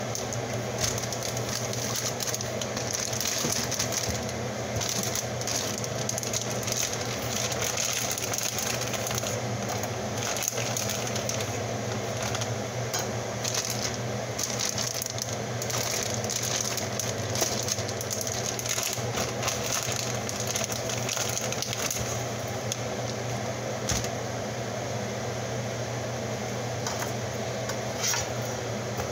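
Steady hum of a kitchen appliance or fan, with scattered light rustles and knocks: plastic bags of vegetables handled and produce set down on a cutting board.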